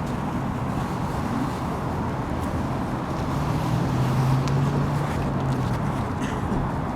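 Steady city street traffic noise. A low vehicle hum swells about three seconds in and fades again after a couple of seconds.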